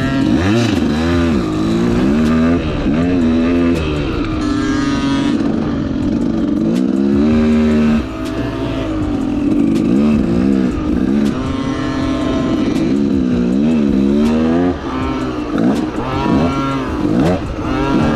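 Dirt bike engine revving up and dropping back again and again as it rides a trail, the pitch climbing and falling every second or two.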